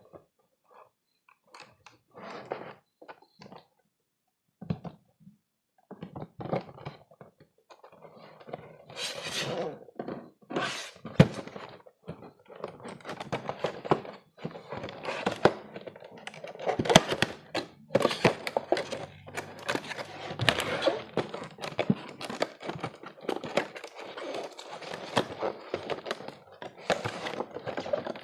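Action-figure packaging being handled and opened: scattered taps and light rustles at first, then from about eight seconds in a busy run of rustling, crinkling and sharp clicks and knocks.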